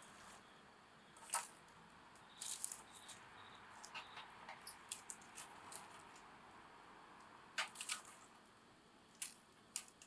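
Wood campfire crackling quietly: irregular sharp pops and snaps over a soft hiss of burning, with the loudest pop about a second and a half in and another pair of strong snaps near the end.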